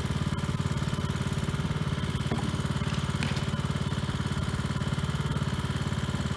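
Small vehicle engine idling steadily, an even, rapid chugging pulse that does not rise or fall.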